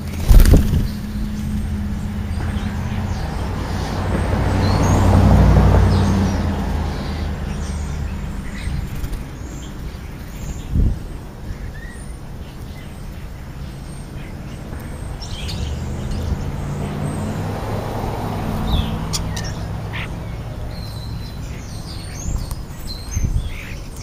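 Traffic passing on a street: a low hum that swells about five seconds in and again later. Over it come faint scattered chirps from European starlings and a few sharp knocks, the loudest right at the start.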